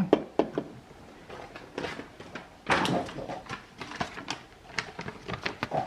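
Hands working electrical wires and a wall switch: an irregular string of small clicks and taps, with a short scraping rustle about three seconds in.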